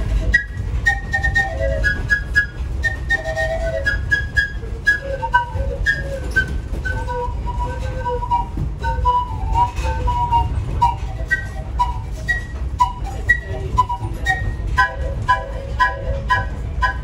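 Harmonica played into a handheld microphone, a reedy melody of short notes, often two sounding together, that quickens into quick back-and-forth notes near the end. A steady low rumble of the moving train runs underneath.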